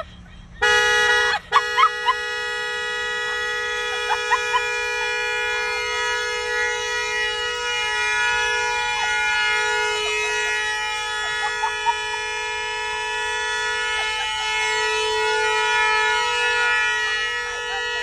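Acura sedan's two-tone car horn stuck on, sounding without a break, the fault that sets it off when the car is put into gear. It starts about half a second in, drops out for a moment, then holds one steady, unbroken note.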